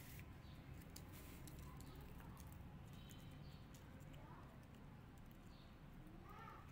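Faint clicking and smacking of a kitten suckling at a small milk bottle, over a low steady hum.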